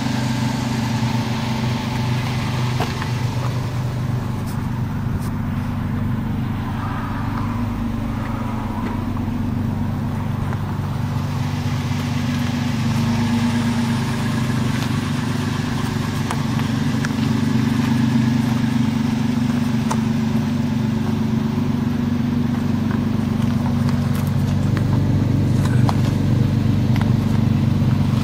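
2005 Toyota Tacoma's 4.0-litre V6 engine idling steadily, growing a little louder near the end.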